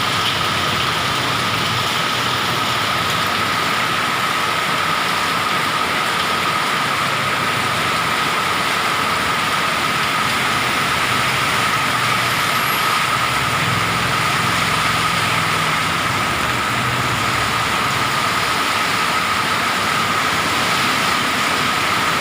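Heavy rain falling steadily, a dense even hiss, with a thin steady tone running through it.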